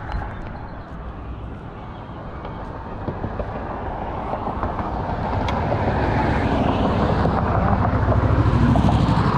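Road noise from nearby highway traffic, steady at first and then swelling as a vehicle approaches, loudest near the end with a pulsing low rumble.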